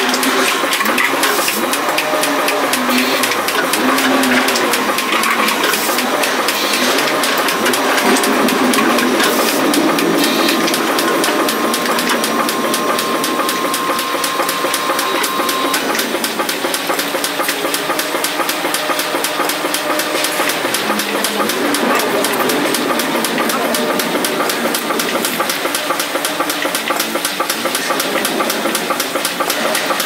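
Robotic milking machine running: a steady hiss of vacuum and air with rapid fine pulsing, and a thin steady whine that stops about halfway through.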